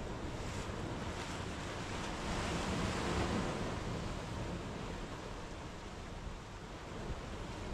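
Sea waves breaking and washing up a sandy beach, a steady surf hiss with one surge swelling louder about two to three seconds in.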